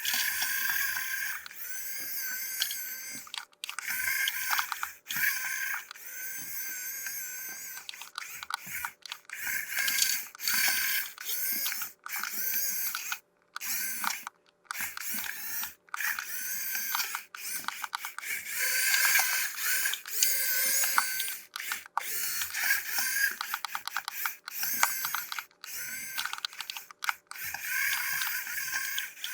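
Plastic toy parts and packaging being handled: a run of small clicks, taps and rustling, broken by many short gaps.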